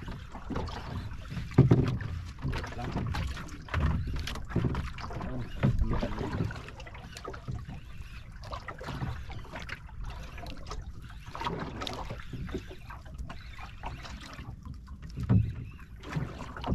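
Wind buffeting the microphone and water lapping at a small outrigger boat's hull, in uneven gusts with a few louder thumps, the biggest about a second and a half in and near the end.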